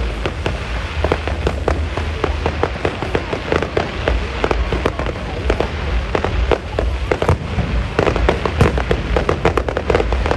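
Fireworks going off in a dense, continuous barrage of sharp crackling pops over a steady low rumble.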